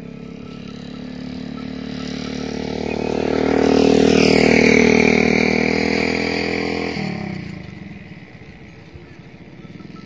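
A motor vehicle engine passing by. It grows louder to a peak about four to five seconds in, its pitch falls as it goes by, and it fades out after about seven seconds.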